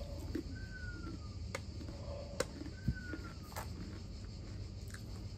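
A person chewing a crunchy biscuit with the mouth closed, giving a few soft crunching clicks. Two falling whistled notes sound, one about half a second in and one about three seconds in, over a faint steady hum.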